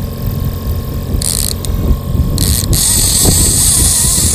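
Shimano line-counter trolling reel paying out line, buzzing in spurts, over a steady low rumble of wind and boat noise.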